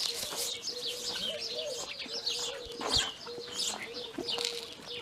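Birds chirping: many short, high chirps overlapping at a quick pace, with chickens among them at the feed. A single knock about three seconds in.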